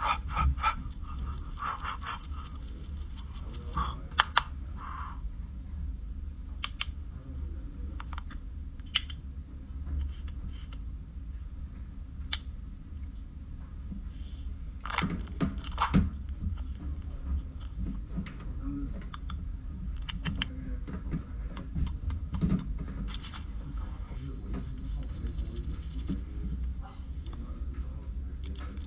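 Close-miked makeup application: scattered clicks and taps of cosmetic cases and tools, with brush and sponge rubbing on skin, over a steady low hum.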